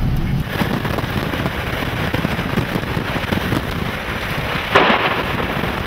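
Heavy rain in a thunderstorm, a dense crackling hiss throughout, with one sudden loud crack near the end.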